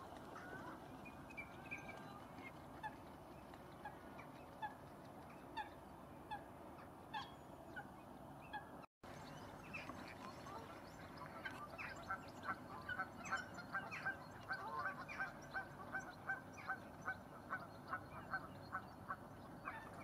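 Geese honking: scattered single honks at first, then a steady run of repeated honks, about two or three a second, through the second half. The sound cuts out for a moment about nine seconds in.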